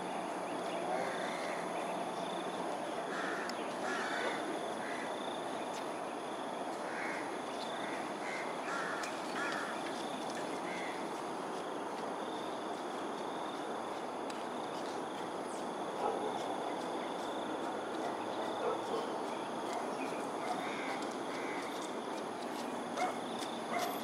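Crows cawing in scattered short bursts, over a steady background hiss.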